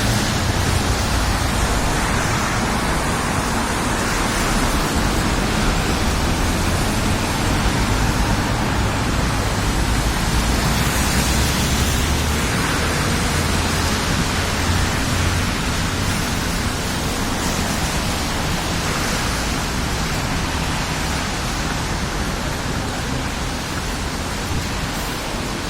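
Wind blowing on the microphone: a loud, steady rush with an uneven low rumble of buffeting.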